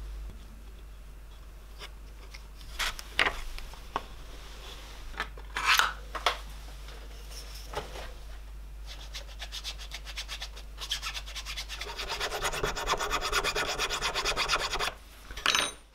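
A thin round file scraping inside the bored tang hole of a masur birch knife handle. A few separate scrapes and knocks come first, then a fast, even run of filing strokes in the second half, the loudest part, ending with one more short scrape.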